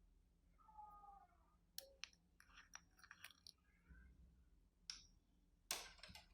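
Slime being mixed with plastic bags: scattered sharp clicks and crackles, a cluster in the middle and the loudest near the end.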